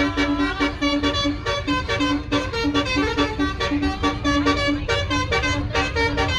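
Basuri telolet horn, a set of electric air-horn trumpets on a bus or truck, playing a rhythmic tune of short notes, several a second, over a low engine rumble.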